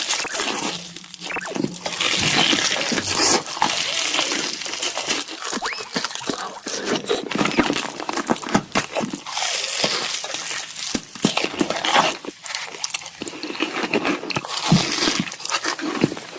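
Close-miked eating sounds: a person crunching and chewing crispy fried chicken, with irregular crackles and wet mouth sounds.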